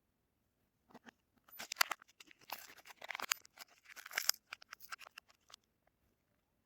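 Soap wrapper being torn and crinkled open by hand: a run of crackly tearing and rustling that starts about a second in, comes in several louder clusters and dies away near the end.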